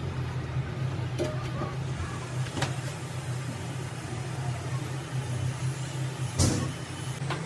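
A steady low engine-like hum runs throughout, with a few sharp knocks on top, the loudest about six and a half seconds in.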